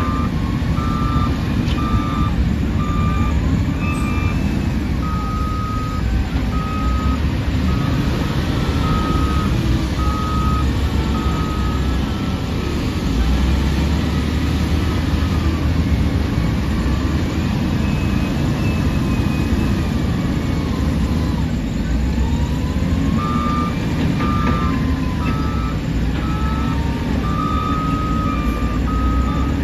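Heavy diesel engines of a wheel loader and excavators running, their pitch rising and falling with the work. A reversing alarm beeps in a steady repeating pattern through the first part and again near the end.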